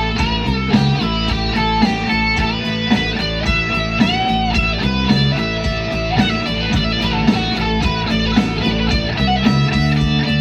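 Guitar-led instrumental music with a steady beat; the lead melody bends and glides between notes.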